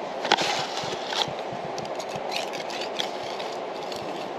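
Scraping and a few sharp clacks of hand work, with old hardened grease being cleaned off to make way for new grease, over a steady low rumble of running machinery.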